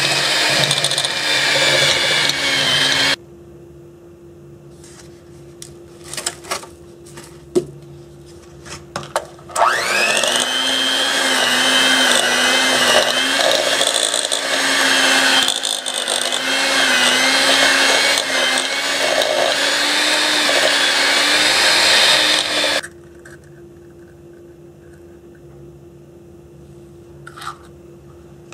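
Electric hand mixer whirring as it creams softened butter and brown sugar in a glass bowl: it runs for about three seconds and stops, a few knocks and clicks follow, then it starts again with a rising whine as it spins up, runs steadily for about thirteen seconds and switches off. Near the end, a short crack as an egg goes into the bowl.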